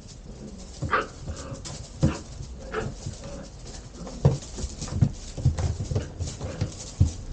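Dutch shepherd puppies yapping and whining in a string of short sharp sounds, several with a high pitched cry, as they squabble over a cardboard box and scrabble against it.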